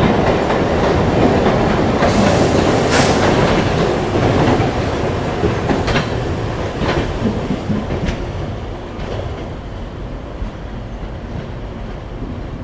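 Express passenger train running on the rails, wheels clattering over the track with a few sharp clacks; the noise eases off after about five seconds.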